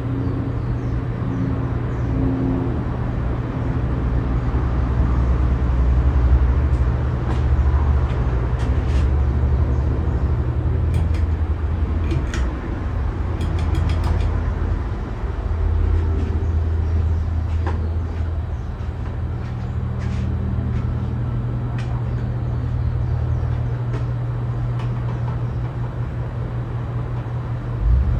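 Casablanca Wailea ceiling fan running on its replacement start/run capacitor: a steady motor hum under an uneven low rumble, with a few faint ticks scattered through.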